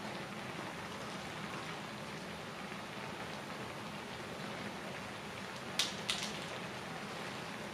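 Udon broth boiling hard in a thin aluminium tray on a gas burner: a steady bubbling and spattering. About six seconds in come two sharp clicks of a metal spoon against the tray as toppings are spooned in.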